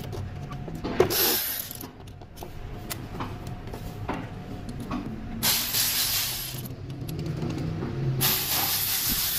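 Three hissing bursts from a pressurised nozzle played over the engine bay: a short one about a second in, a longer one in the middle, and one near the end. A low steady hum and small clicks sit beneath them.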